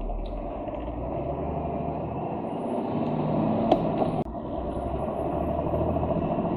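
Lorry engine and road noise heard from inside the cab, growing louder over the first few seconds. About halfway through there is a sharp click, then the sound drops suddenly for a moment and builds again.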